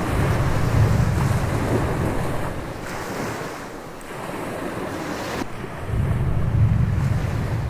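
Gulf surf breaking and washing onto a sandy beach, with stormy wind buffeting the microphone in two low rumbling gusts, one at the start and another about six seconds in.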